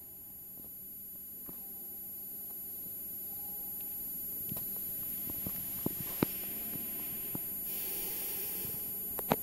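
Recording background noise: a steady high-pitched whine over hiss that slowly grows louder, with scattered sharp clicks, the loudest near the end, and a brief rush of hiss about eight seconds in.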